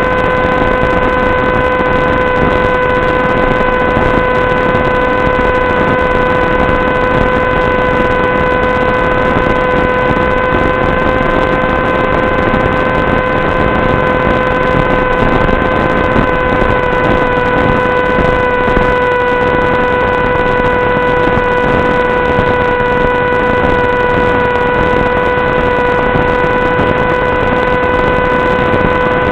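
Electric motor and propeller of an FPV wing droning at one steady pitch under a loud hiss, as at constant cruise throttle.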